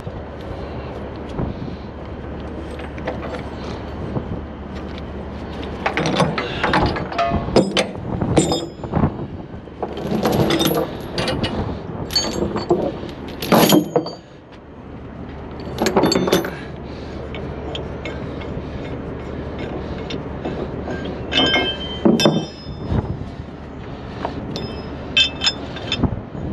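Steel tie-down chains and a chain binder being unhooked and handled on a wooden trailer deck: clanking and rattling of chain links in clusters several seconds apart, over a steady low hum.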